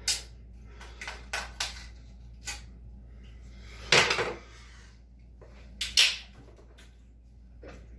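Aluminium beer cans (Molson Canadian) handled for a shotgun: a run of clicks and knocks, then two louder, sharp cracking bursts about four and six seconds in.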